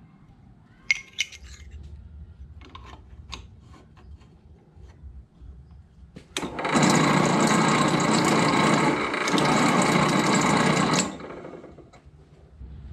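A few light clicks and knocks of metal parts being handled. Then, about six seconds in, a benchtop drill press starts and runs steadily for about four and a half seconds, drilling into a flat steel bar clamped in its vise, and stops.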